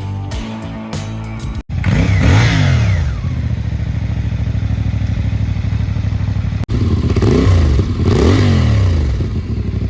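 CFmoto Voom 500 SR's 499 cc inline-four engine running hard in two short clips, its pitch sweeping up and down. Background music plays for the first couple of seconds.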